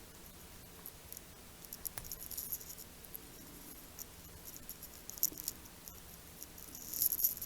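Faint, irregular small clicks and scratchy ticks from homemade wire strippers working the insulation off thin wires, with a sharper click about two seconds in and a busier patch near the end.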